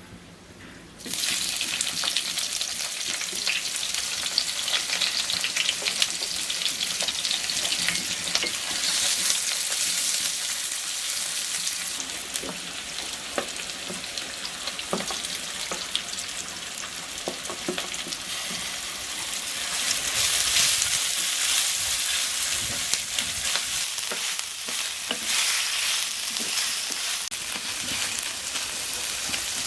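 Food frying in hot oil in a pan, sizzling loudly. The sizzle starts abruptly about a second in, with scattered clicks and knocks of a utensil stirring.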